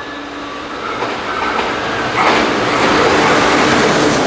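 JR West Kumoya 443 series electric test train running through the station without stopping. Its wheel and rail noise builds as it comes in and is loudest from about two seconds in, as the cars rush past the platform.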